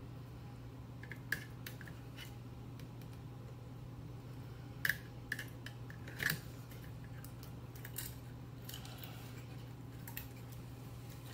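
Small, sharp clicks and light scrapes of hands working the dial wires and terminal hardware on a Northern Electric 500 telephone's network block, the two loudest clicks about five and six seconds in. A steady low hum lies under them.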